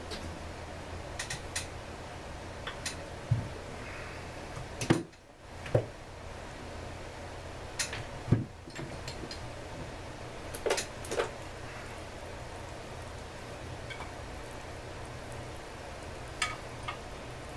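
Scattered clinks, clicks and knocks of hand tools and Echo CS-400EVL chainsaw parts being handled on a workbench during disassembly, over a steady low hum. The loudest knocks come about five and eight seconds in.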